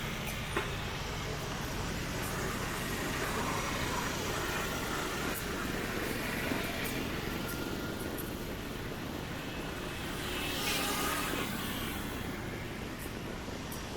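Street traffic: a steady wash of vehicles moving along the road, with one vehicle passing louder about ten to eleven seconds in.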